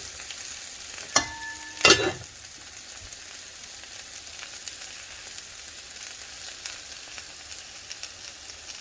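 Chicken frying in a pan with a steady sizzle and fine crackle. About a second in come two sharp clinks, the first one ringing briefly.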